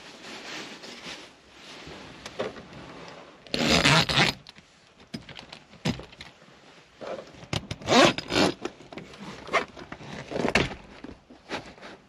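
A zipper being pulled in several runs, with scraping and rustling of fabric: one long zip about three and a half seconds in, then shorter zips and scrapes around eight and ten seconds in.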